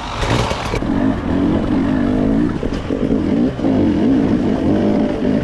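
A KTM enduro dirt bike's engine, heard from on board, revving up and down in quick throttle blips as it picks its way along a rocky trail. There is a short harsh blast of noise in the first second.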